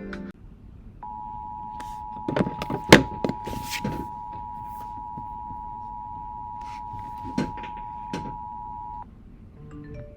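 Emergency Alert System attention signal: a steady two-note electronic tone held for about eight seconds. It starts about a second in and cuts off sharply, announcing the tornado warning broadcast that follows. Several sharp knocks and clicks sound over the tone, the loudest about three seconds in.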